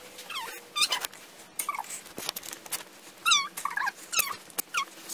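A run of short, high-pitched whines and yelps, one after another, each bending up and down in pitch, with a few sharp clicks between them.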